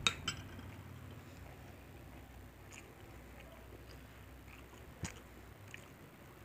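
Metal spoon clinking twice against a cut-glass bowl of sambal right at the start, with a short ring. Then soft open-mouthed chewing, with a few faint clicks.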